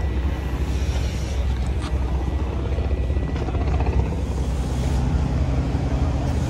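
Steady low engine rumble of vehicles running in a race pit area, holding level without revving.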